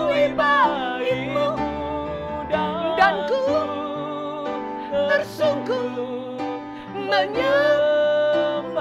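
Slow worship song: a man and a woman singing long, wavering held notes over steady sustained instrumental chords.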